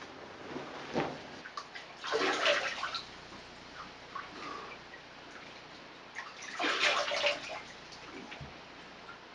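Water being splashed onto a face over a bathroom washbasin: two splashing bouts of about a second each, about two seconds in and again near seven seconds. A single knock comes about a second in.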